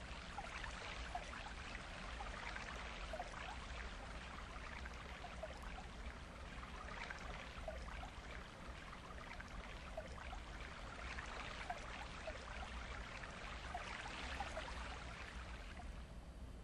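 Faint, steady running water, trickling and splashing, with small bubbling plinks.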